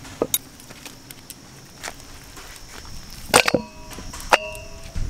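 Raw mutton pieces handled and dropped into a stainless steel bowl: small soft clicks, then two sharp clanks in the second half, the bowl ringing briefly after each.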